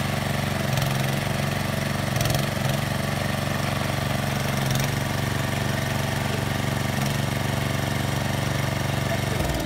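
Small single-cylinder 6.5 hp petrol engine running steadily, driving the hydraulic pump of a homemade mini excavator, its note wavering briefly a few times as the arm and bucket are worked. It begins to die away at the very end.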